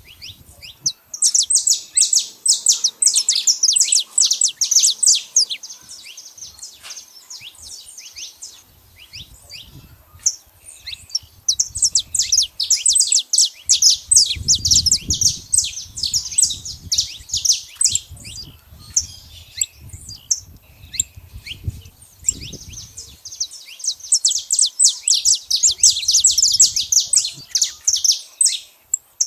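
Saffron finch (canário-da-terra) song: long runs of rapid, high chirping notes, in three extended bursts with scattered single chirps between them.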